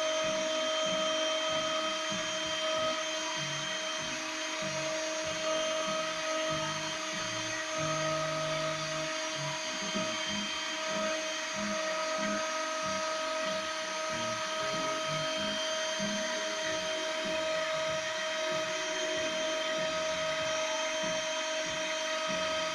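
Small CNC mill's high-speed spindle running at a steady high pitch while milling a printed circuit board, with the axis stepper motors humming underneath in short notes that keep changing pitch as the machine moves.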